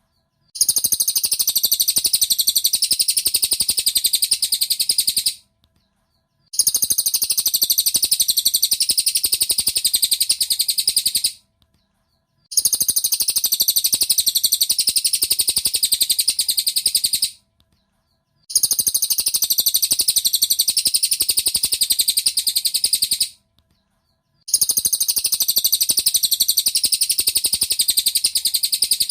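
Cililin (lesser racket-tailed drongo) song used as a training recording: a rapid, dense chattering run of high notes in bouts about five seconds long, repeated with about a second of silence between them.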